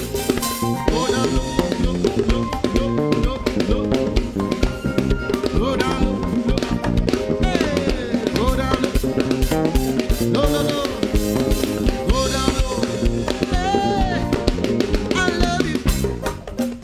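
Live band music: a drum kit keeping a steady beat under keyboard and electric bass guitar.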